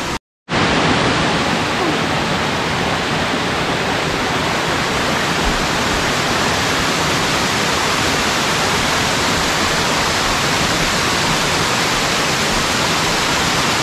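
Amicalola Falls' water cascading over rock ledges, a steady, even rush of white water that cuts out for a moment just after the start.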